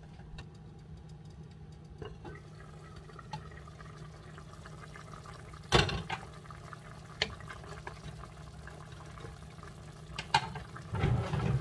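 A pot of chicken curry with potatoes and carrots simmering steadily, with a few sharp clinks of a utensil against the pot. The loudest clink comes about six seconds in, and there are more near the end.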